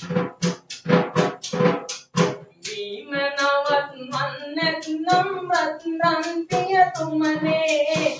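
A young man singing to his own tambourine: about two and a half seconds of quick, even tambourine beats alone, then his voice comes in about three seconds in over the continuing beat.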